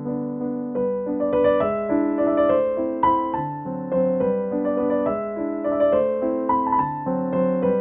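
Background piano music: a slow melody of single notes over lower sustained notes, each note struck and then fading.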